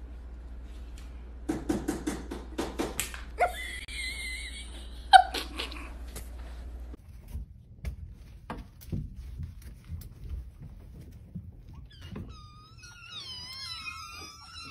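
A run of light knocks and taps. Then, from about twelve seconds in, several young kittens mew together in high, wavering, overlapping cries.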